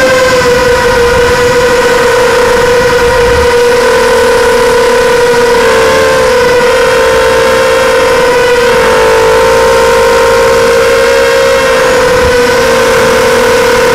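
Racing quadcopter's electric motors and propellers whining steadily, heard loud and close from the onboard camera: one high tone with overtones that dips slightly in the first second and wavers in pitch a few times.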